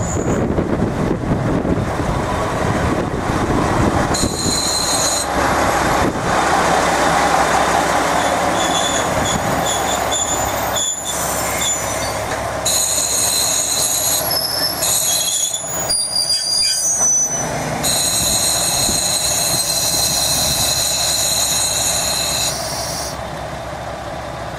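KiHa 40 diesel railcar rolling slowly past with its wheels squealing on the curve: high whistling tones set in about four seconds in, waver and shift in pitch, and die away near the end, over the train's steady rumble.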